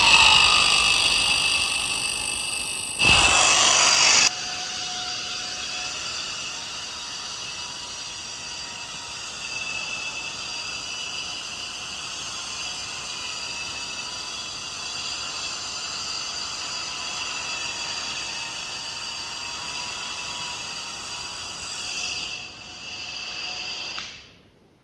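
Repaired mini hair dryer running, its small fan motor giving a steady high whine. It runs louder for about a second around three seconds in, then evenly, and switches off just before the end.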